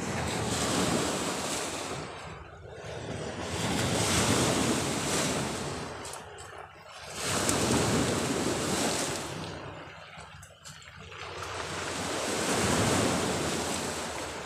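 Sea waves washing onto the shore, a rushing wash that swells and fades four times, some wind mixed in.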